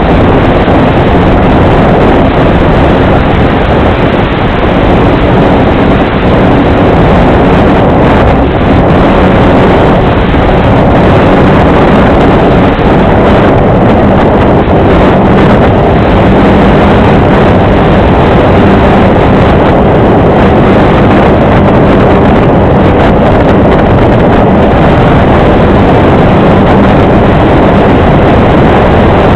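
Electric motor and propeller of an Apprentice RC trainer plane running steadily in flight, with heavy wind rush on the onboard camera's microphone.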